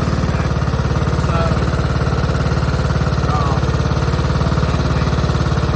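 Riding lawnmower engine running steadily at idle, with a fast, even pulsing beat.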